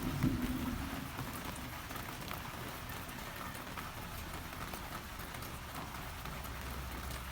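Steady heavy rain falling, with many fine drop ticks, as the tail of a rumble of thunder fades out over about the first second.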